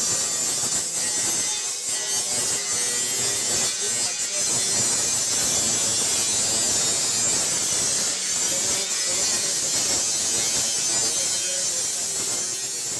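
Steady, high buzzing hiss of machinery in a metal fabrication workshop, fading out near the end.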